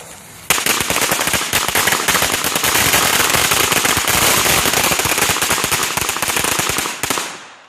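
A string of firecrackers going off in a dense, rapid chain of cracks, starting suddenly about half a second in and stopping near the end.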